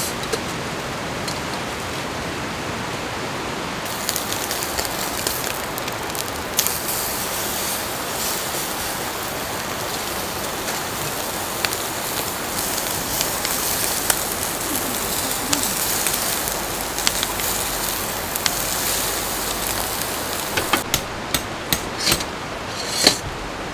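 A steady rush of water underneath throughout. From about four seconds in, beef sizzles on a charcoal grill with a hiss and small ticks. Near the end, a wood fire in a small metal fire pit crackles with scattered sharp pops.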